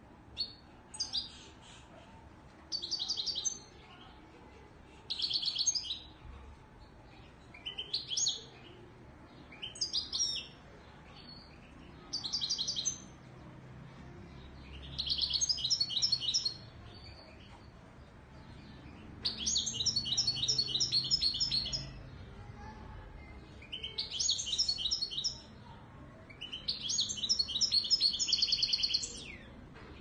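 Moroccan 'widani' European goldfinch singing: short bursts of high twittering about every two seconds, then longer phrases of rapid trilled notes lasting two to three seconds.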